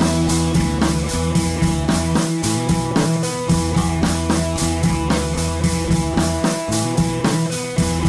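Background rock music with a drum kit keeping a steady beat over guitar and bass.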